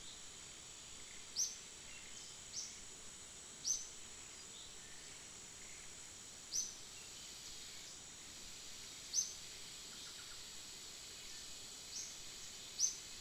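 Outdoor ambience: a steady high insect drone, with short high bird chirps that slide downward, about seven of them at uneven gaps of one to three seconds.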